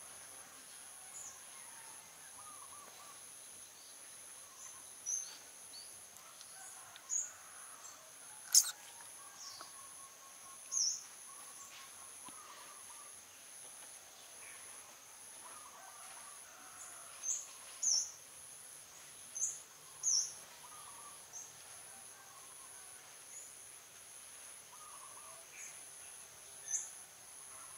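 Outdoor ambience: a steady, high insect drone on two pitches, with short, sharp bird chirps scattered through it. The loudest chirp comes about eight and a half seconds in, and several more come close together about two-thirds of the way through.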